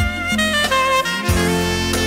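Instrumental music with a melody line stepping from note to note over a steady bass.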